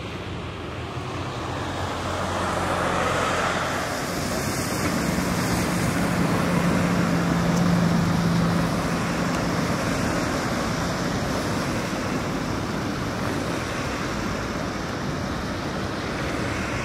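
Steady road traffic noise that swells to a peak about halfway through as a vehicle passes, with a low engine hum, then eases off.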